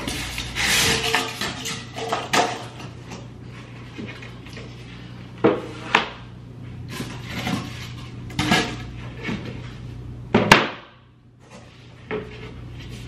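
Cardboard boxes and foam packing being handled as flat-pack bookcase parts are pulled out: rustling and scraping with a few sharp knocks.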